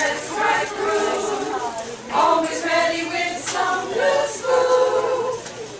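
A choir singing, with some notes held for about a second.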